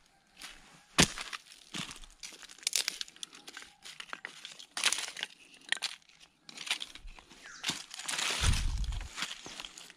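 Dry leaf litter crunching and rustling, with sharp cracks of dry twigs, as sticks are gathered by hand from the forest floor. The sharpest crack comes about a second in, and a longer spell of crunching comes near the end.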